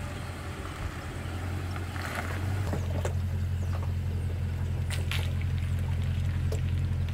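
Toyota Tundra pickup's engine running steadily at low revs while backing a boat trailer down a launch ramp, with a few faint clicks.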